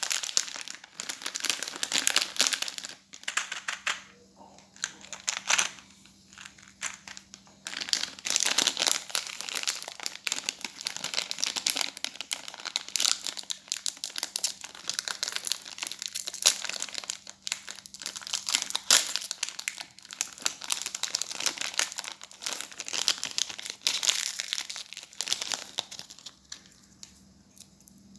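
Plastic candy wrappers crinkling and tearing as they are handled and opened by hand, in irregular bursts with brief pauses, over a faint steady hum.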